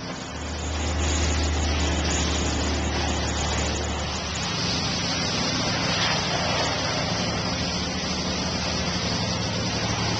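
Car-wash equipment running: a pump's steady low drone and water spraying in the wash bay. The drone stops after about four seconds while the hiss of the spray grows stronger.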